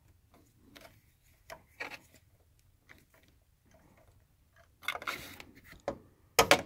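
Scattered light clicks and taps as a Torx socket on an extension and the pump's mounting bolts are worked by hand, with a rustle about five seconds in and a quick cluster of sharper clicks near the end.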